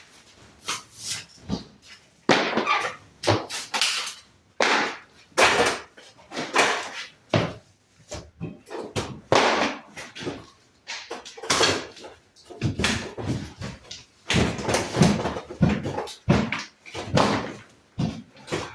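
Wall demolition: a run of irregular knocks, cracks and crunches as wall material is broken out and torn away, about one or two hits a second.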